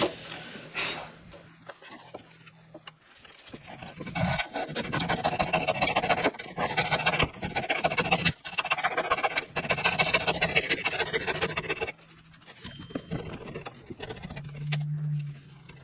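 Handsaw cutting wood in quick, steady back-and-forth strokes, starting about four seconds in and stopping about twelve seconds in.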